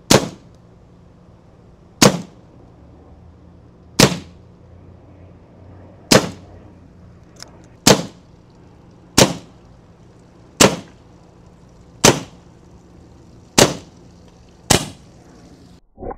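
Ten shots from an Evanix Viper .30 calibre semi-automatic PCP air pistol, each a single sharp crack, coming about every two seconds at first and a little faster toward the end.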